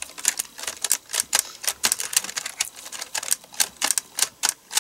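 Computer keyboard keys clacking repeatedly and unevenly, several times a second, as a blue gel cleaner is pressed and squished down over them, pushing the keys in.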